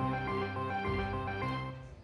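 Slot machine music: a short plucked, guitar-like melody of repeated notes that fades out near the end.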